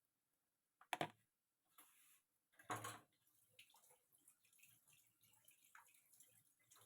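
Cookware clanks twice, about a second in and again near three seconds, as a pan of chopped eggplant, peppers and tomato goes onto the gas burner, then a faint, uneven crackle of the vegetables starting to fry in oil.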